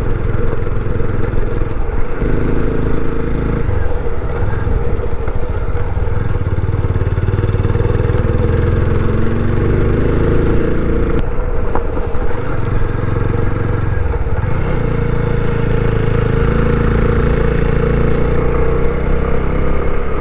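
TVS Apache RTR 160's single-cylinder four-stroke engine running at low road speed, its note falling and rising again several times as the rider works the throttle.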